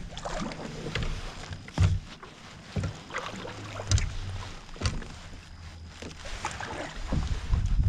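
Kayak paddle strokes: the blade dipping into and pulling through the water with splashing and dripping, and a few sharp knocks along the way.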